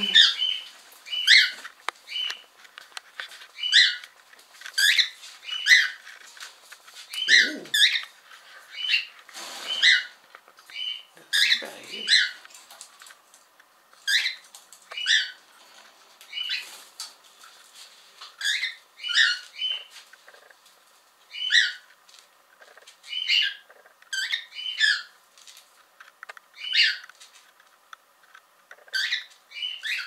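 Pet cockatiels calling over and over, a string of short chirping whistles coming about once a second.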